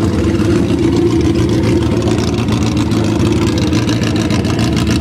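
Motorcycle engine running steadily close by, without revving.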